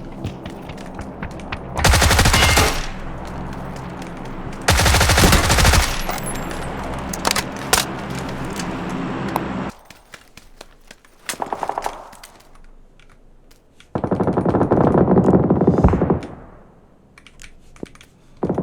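Bursts of automatic gunfire from a first-person shooter game, three long bursts with quieter game sound between.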